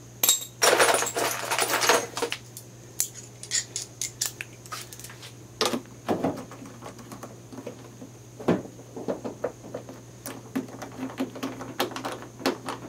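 Metal hand tools clattering, with a loud jumble of clinks about half a second in, then scattered sharp metallic clicks as a socket wrench is handled and worked on the headlamp's mounting bolts.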